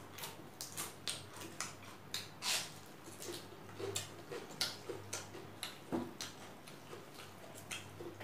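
Close-up eating sounds of rice eaten by hand: irregular short, wet clicks and smacks of chewing, several a second, over a low steady hum.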